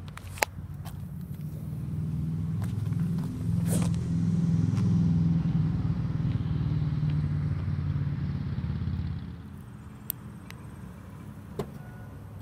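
Mercedes-Benz Metris van's four-cylinder engine idling with a steady low hum, louder through the middle stretch and dropping back near the end, with a sharp click near the start.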